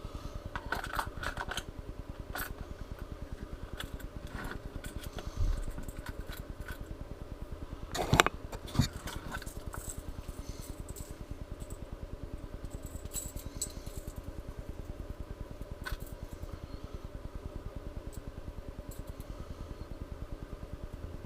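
Fishing lures and hooks being handled from a tackle box: scattered light metal and plastic clicks and rattles, with a couple of louder knocks about eight seconds in, over a steady low hum.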